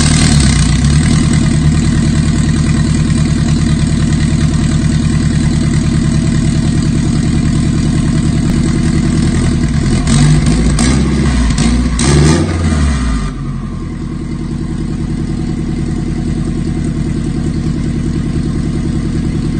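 Turbocharged Honda K20 four-cylinder engine running just after start-up, with two brief blips of revs about ten and twelve seconds in, then the idle drops and quietens. It is being run to bleed air from its freshly refilled cooling system.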